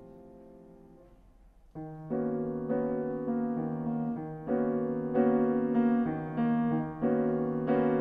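Piano and string quartet playing slow sustained chords. A held chord fades almost away, then about two seconds in the ensemble comes back in louder with a series of chords that swell toward the end.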